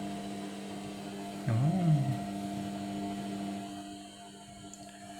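Overloaded Indesit washing machine running with a steady motor hum that eases off somewhat in the second half. About one and a half seconds in, a short, loud voice-like call rises and falls in pitch over the hum.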